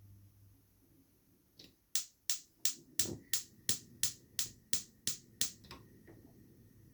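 Gas cooker's spark igniter clicking rapidly, about a dozen sharp clicks at roughly three a second, then stopping; a faint steady high tone comes in partway through.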